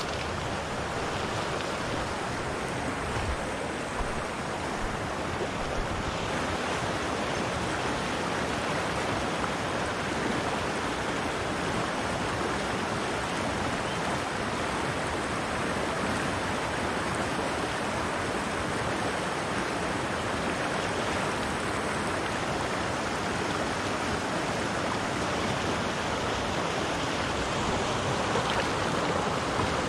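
Steady rush of a mountain stream's water flowing over rocks.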